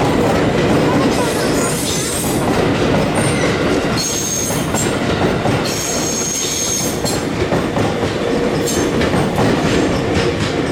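Chuo Line local electric train running past at close range, its wheels clattering over the rails, with a high wheel squeal twice around the middle.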